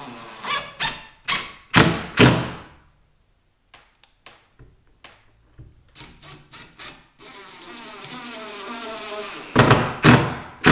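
DeWalt cordless driver driving screws through a wooden mantel cleat into the wall: the motor whines up as each screw runs in, then gives a run of short sharp bursts as the screw is snugged tight. This happens twice, with small handling clicks between.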